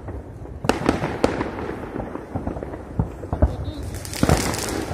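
Fireworks going off in a New Year salute: a series of sharp bangs, about one a second, then a loud hiss in the last second.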